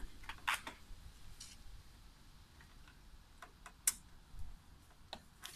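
Faint, scattered clicks and ticks at uneven intervals over a quiet background.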